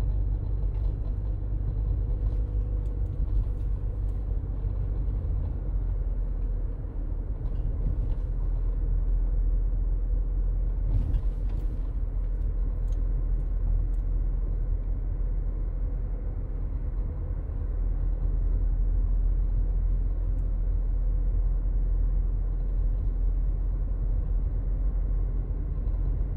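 Steady low road rumble of a moving car, heard from inside the cabin while driving at a constant speed.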